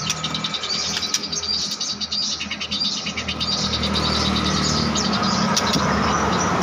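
Murai bird chirping in rapid runs of short, high notes as it practises its song, busiest in the first half and sparser later, over a low steady hum that grows stronger near the end.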